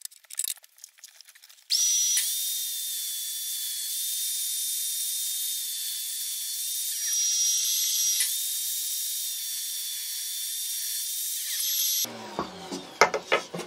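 Table saw running with a steady high whine as it rips the grooved lower edge off a heat-treated wooden sauna panel board, starting about two seconds in and stopping about twelve seconds in, with a brief dip near the middle. A few light knocks of the wood being handled near the end.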